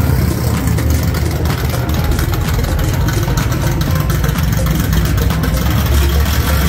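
A car engine idling, with music that has a heavy bass line playing over it.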